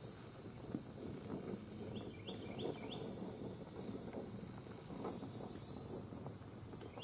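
Faint outdoor background in which a small bird calls a quick run of four high chirps about two seconds in.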